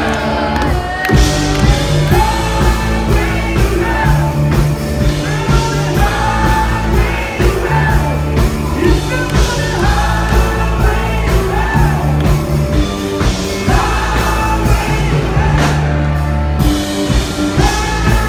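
Live rock band playing loud, with a singer carrying the melody over a steady bass and drum beat.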